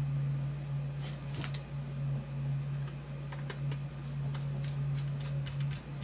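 Light clicks and taps as a graphics card and small hardware are handled during reassembly, with a brief rustle about a second in, over a steady low hum.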